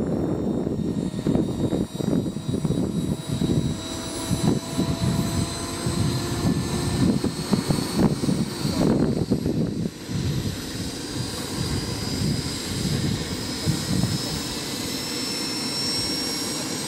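Pahl Taurus two-stage model turbine of a large RC Mi-24 helicopter running on the ground before take-off, its high whine slowly rising as it spools up, over an uneven low rumble.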